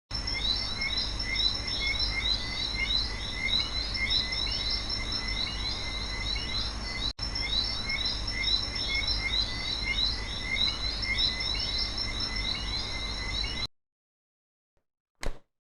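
A chorus of many short, repeated chirping calls over a steady low hum. It drops out for an instant about halfway, cuts off abruptly near the end, and one sharp knock follows.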